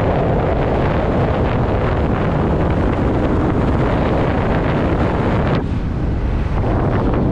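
Wind rushing and buffeting over the microphone while riding on the back of a motorbike taxi, a loud steady roar that eases briefly about five and a half seconds in.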